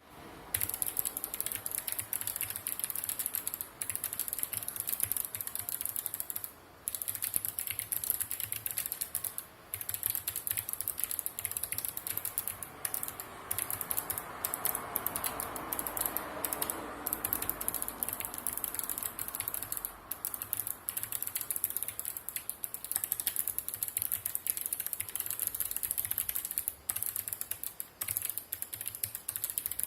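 Fast, continuous typing on a Sharkoon PureWriter mechanical keyboard with clicky Kailh Blue low-profile switches: a dense stream of sharp key clicks, broken by a few short pauses.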